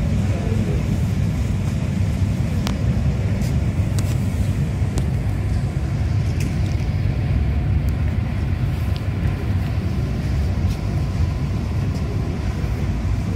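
Steady low rumbling background noise, with a few faint clicks scattered through it.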